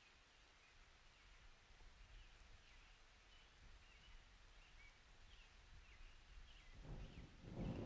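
Faint, repeated short bird chirps over quiet outdoor ambience. In the last second a low rumble of thunder begins to build.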